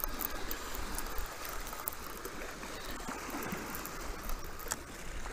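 Spinning reel being cranked steadily while reeling in a small hooked catfish, over a low rumble of wind on the microphone and water lapping at the bank. A sharp click near the end.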